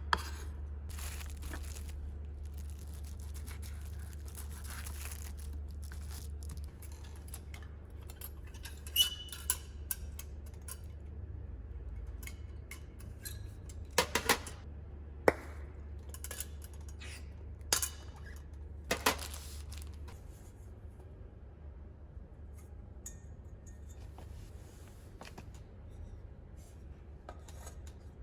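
Dishes and cooking utensils clinking and knocking now and then during food preparation, a handful of sharp clicks over a steady low hum.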